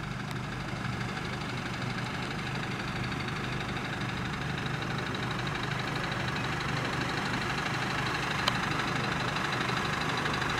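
A fire engine's motor running steadily at idle, growing slightly louder over the seconds, with a small click near the end.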